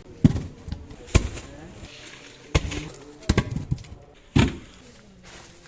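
A series of sharp, irregular knocks or chops, about six in all, the last few coming in quick succession. Faint voices talk between them.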